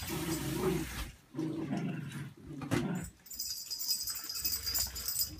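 Dogs growling in play, in short bouts of about a second, while tugging at a plush toy.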